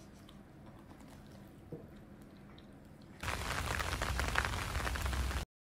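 Quiet room sound for about three seconds, then steady rain falling. The rain stops abruptly near the end.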